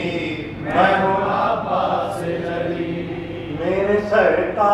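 A man's voice reciting verse in a chanted, sing-song style through a microphone and loudspeakers, phrases drawn out on held, sliding notes with short pauses between them.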